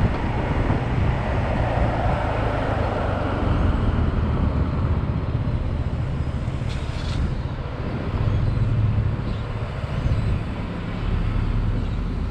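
Honda PCX scooter's single-cylinder engine running under the rider, with wind rushing over the microphone; the wind noise eases after a few seconds as the scooter slows behind a car in traffic.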